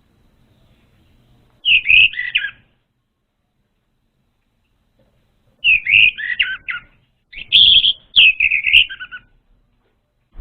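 Orange-headed thrush singing: three loud, rich warbled phrases with pauses between them, the second and third close together near the end. It is played as a lure call to draw a young thrush into song.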